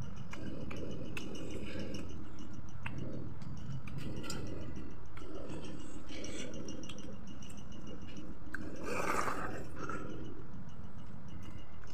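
Close-up chewing of fried chicken, with wet mouth clicks and smacks over a low rumbling haze, and one louder, sharper mouth sound about nine seconds in.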